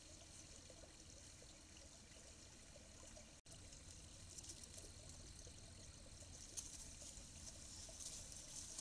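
Near silence: a faint steady hiss, broken by a brief dropout about three and a half seconds in. After it, light crackling and rustling grows slightly as a beaver moves close past through dry grass.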